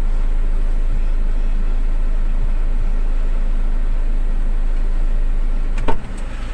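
A vehicle engine idling with a steady low rumble. A single sharp knock comes near the end, and the rumble is quieter after it.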